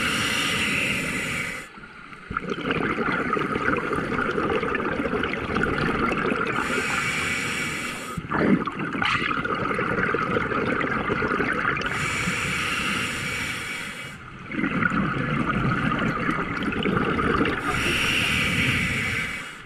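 Scuba diver breathing through a regulator underwater: a hissing inhale four times, about every five to six seconds, each followed by a long gurgling rush of exhaled bubbles.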